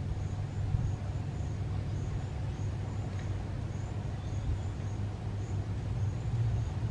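Steady low rumble of road traffic on the concrete bridge deck overhead, with faint short high chirps repeating throughout.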